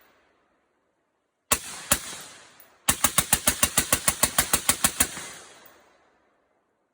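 A 5.56 AR-15 rifle firing: two shots, then a rapid string of about fourteen shots, about seven a second. A long echo fades after each string.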